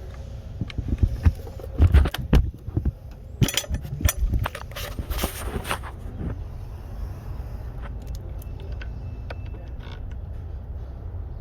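Clusters of sharp clicks and metallic clinks in the first half, the sound of small metal objects being handled and rattled, over a steady low rumble.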